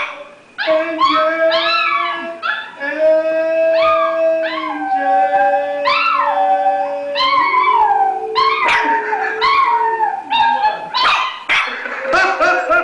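Dogs howling and yipping in a 'singing' chorus: long held, steady notes under a run of short, high yelps that rise and fall in pitch.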